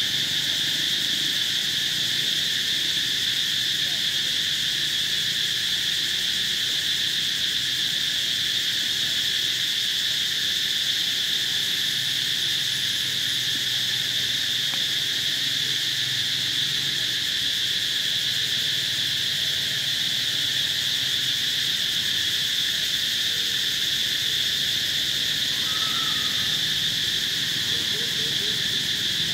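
Steady insect chorus: an unbroken high-pitched drone that holds the same level, with no breaks or pulses.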